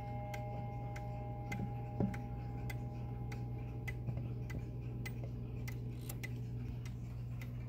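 Howard Miller 'Jennison' wall clock's mechanical movement ticking steadily, about three ticks a second. In the first second and a half a few clear tones fade out, the last ring of the chime, and a single knock sounds about two seconds in.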